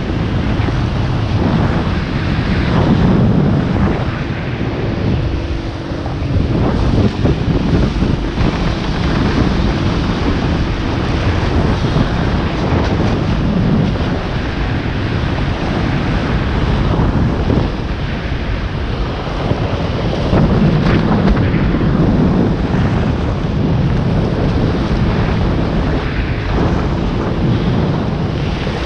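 Wind buffeting the microphone of a camera on a slalom waterskier, over the rush of water spray off the ski as it cuts back and forth across a tow boat's wake.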